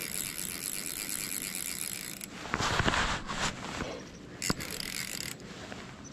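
Fly reel's click-and-pawl drag clicking rapidly as line runs on a freshly hooked trout. About halfway through there is a louder rush of noise, then a single sharp click.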